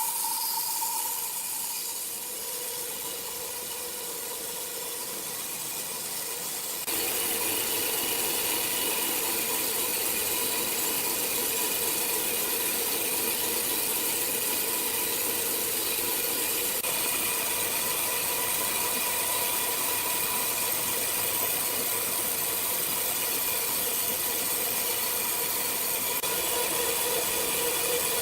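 Sawmill machinery running steadily, a hiss mixed with a constant hum of a few fixed tones. It gets suddenly louder about seven seconds in and holds there.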